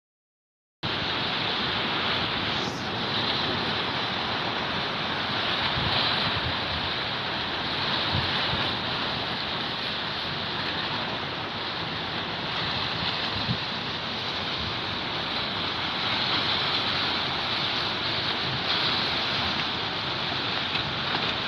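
Steady rush of wind over the microphone mixed with the wash of open sea and a boat's wake below.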